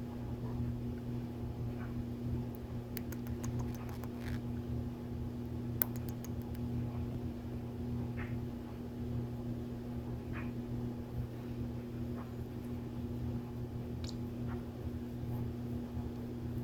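A steady low mechanical hum runs throughout. Over it come scattered faint clicks and a few short, soft chirps from a pet parrotlet.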